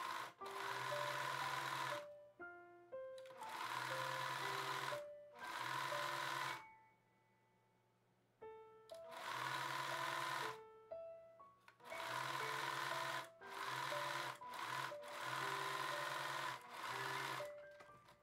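Electric domestic sewing machine stitching a long straight seam in stop-start runs of one to two seconds each, with a pause of about two seconds partway through. Background music plays along with it.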